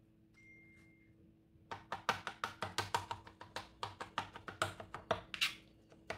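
Kitchen knife chopping soft roasted eggplant on a plastic cutting board: a fast, regular run of knocks, about five a second, starting a couple of seconds in.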